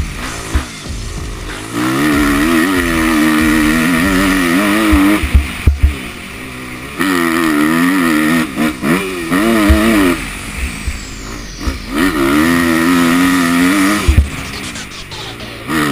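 Kawasaki KX250F single-cylinder four-stroke motocross engine, heard from the rider's helmet camera, revving up and down again and again as the throttle opens and closes, with a few sharp thumps.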